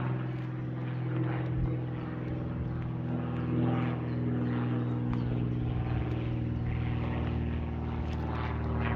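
Light propeller aircraft flying overhead: its piston engine and propeller give a steady drone that grows a little louder right at the end.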